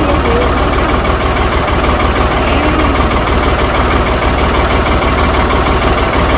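Ford 4610 tractor's three-cylinder diesel engine idling steadily.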